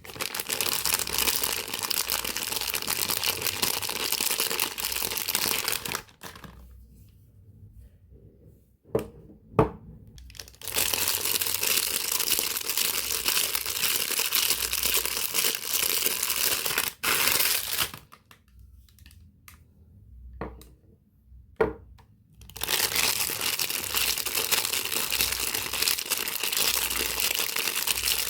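Soap wrappers being unwrapped by hand, crinkling and tearing in three long spells, with short pauses between that hold a few sharp taps and clicks.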